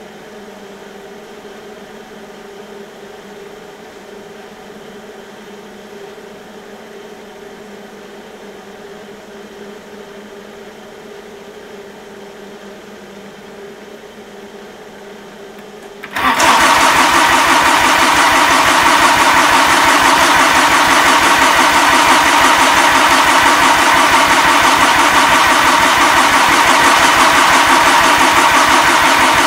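A low steady hum, then about sixteen seconds in a Cub Cadet garden tractor's Kubota diesel is cranked on its electric starter, a loud steady churning with a fast even beat, for about thirteen seconds without firing: a failed cold start in sub-freezing cold.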